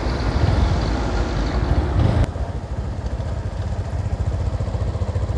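Motorcycle engine heard from the rider's seat. For the first two seconds it is riding, with rushing wind and road noise. Then there is an abrupt change to a steady low putter as the bike rolls slowly at low revs.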